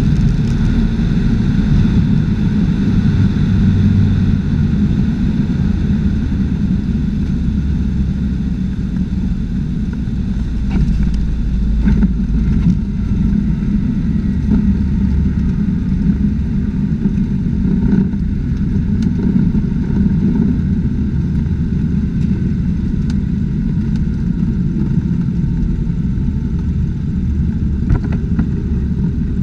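Cessna 210's six-cylinder piston engine and propeller heard from inside the cabin, a steady drone with rushing air, during touchdown and the landing roll. A few faint clicks or bumps sound along the way.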